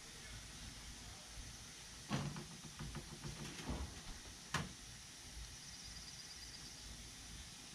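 Light rattling and knocking of a wire rabbit cage and a hard plastic freezer pack handled against it: a cluster of small knocks about two seconds in, then one sharp click a couple of seconds later.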